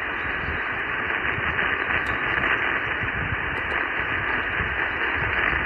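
Steady static hiss from a ham radio receiver tuned to the RS-44 satellite downlink while the operator listens after calling CQ; no station is answering.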